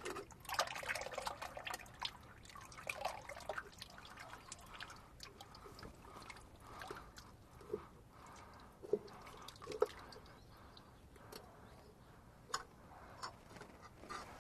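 Old hydraulic oil dripping and trickling from the underside of a Case 4230 tractor into a drain pan, in irregular drips, with a few light clicks and knocks from hands working the filter housing loose.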